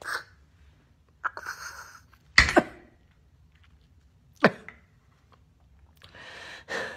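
A woman coughing and spluttering after downing a drink in one go: a few separate coughs, the loudest a pair about two and a half seconds in and a sharp one near four and a half seconds, then heavy breathing near the end.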